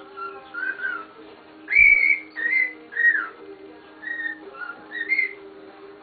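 Cockatiel whistling a tune of short notes, some sliding up or down, the loudest and highest about two seconds in, over a steady low hum.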